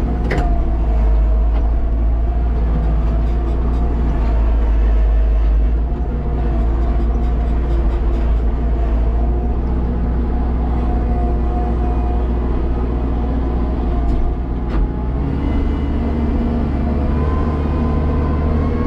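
Kubota tractor's diesel engine running steadily, heard from inside the cab. There is a sharp click just after the start and another about 15 seconds in.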